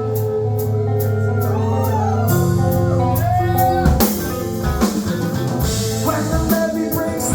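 Rock music with a drum kit, guitar and bass under a singing voice.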